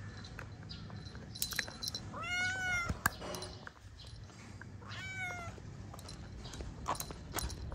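Cat meowing twice: a longer meow that rises and falls about two seconds in, and a shorter one about five seconds in. A few sharp clicks come between and after the meows.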